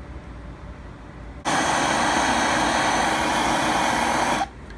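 Propane torch flame burning steadily: a loud, even rushing noise that starts suddenly about a second and a half in and stops suddenly near the end.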